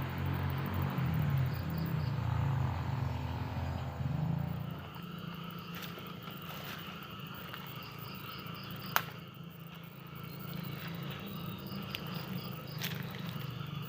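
Insects chirping steadily in rural outdoor ambience, with a low rumble over the first four to five seconds and a single sharp click about nine seconds in.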